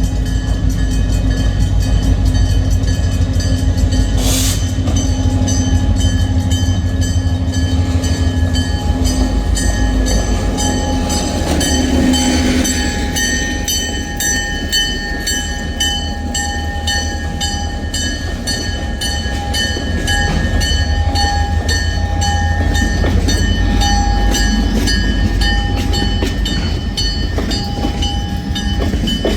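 Freight train rolling past with a steady, heavy low rumble from the locomotive and cars and a faint regular clatter of wheels. Several steady high tones ring over it.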